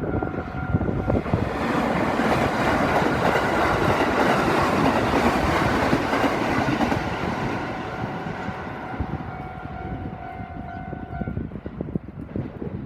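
Local passenger train passing over a level crossing: the train noise swells a second or two in, stays loud for about five seconds with wheels clacking over the rail joints, then fades as the train moves off. The crossing's warning bell is heard ringing at the start and again as the train noise dies away.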